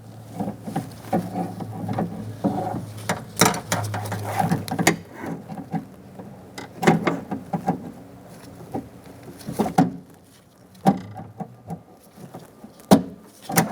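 Door-handle linkage rod and plastic clip inside a Honda CR-V front door being worked into place: scattered sharp clicks and taps of metal against plastic, with quieter rustling handling in between.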